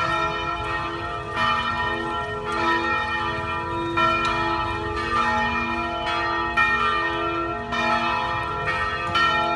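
Church bells pealing for Easter: several bells of different pitch struck one after another, about one strike a second, each ringing on and overlapping the next.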